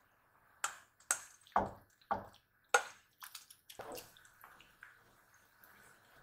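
A run of sharp clicks and knocks, about two a second over the first three seconds, then softer clatter.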